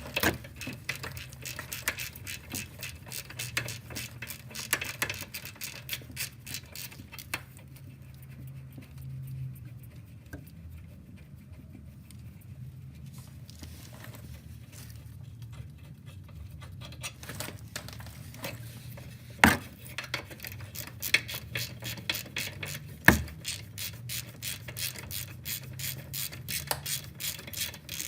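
Ratchet wrench clicking rapidly as the 18 mm caliper bracket bolts are backed out. It goes quieter for several seconds in the middle, then clicks again, with two sharp metal knocks in the second half.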